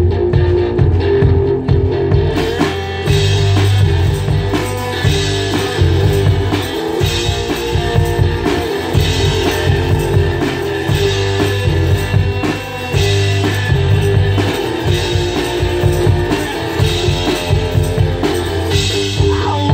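One-man band playing a song: strummed guitar with a thumbed bass line over a steady kick-drum beat worked by the feet.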